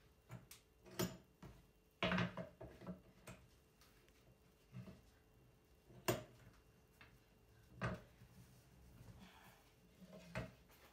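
Scattered light knocks and taps of wooden pieces and bar clamps being handled during a glue-up, as a thin batten is set across the clamped walnut board. A few sharper knocks stand out, several seconds apart.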